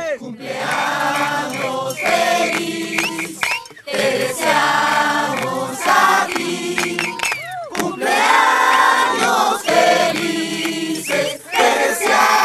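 Music with choir-like singing: several voices holding sustained chords that shift every second or two, with short breaks about four and eight seconds in.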